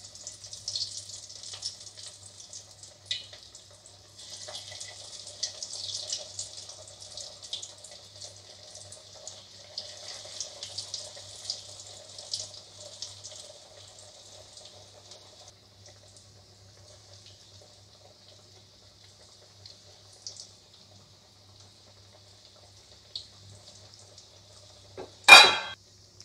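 Potato pakoras in batter sizzling and crackling as they deep-fry in hot oil in a steel kadai. The sizzle swells in waves as more pakoras are dropped in, then dies down to a faint crackle. There is a sharp knock near the end.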